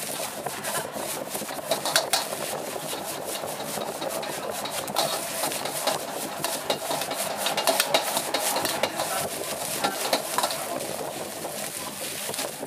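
Steel ladle scraping and clanking against a wok as egg fried rice is stir-fried, with many quick knocks over a steady sizzle of the rice in hot oil.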